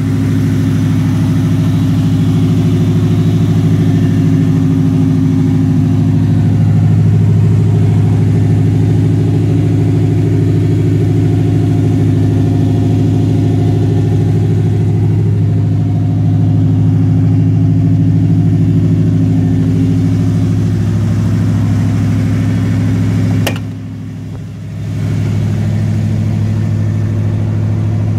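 The Ford Racing crate V8 of a 1985 Ford F-150 idling steadily. One sharp knock comes late on, and the engine sounds quieter for about a second after it.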